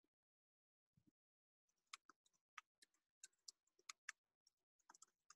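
Faint computer keyboard typing: a run of irregular keystroke clicks that starts about two seconds in, as two short words are typed.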